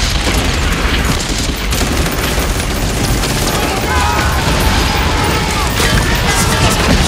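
Battle-scene sound effects: a dense, continuous din of rapid gunfire and explosions, with voices shouting over it from about four seconds in.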